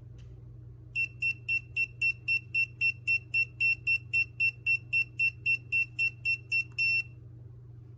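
Kiprim GD01 gas leak detector's audible alarm: a rapid string of high-pitched electronic beeps, about four a second for some six seconds, ending in a slightly longer beep. A low steady hum runs underneath.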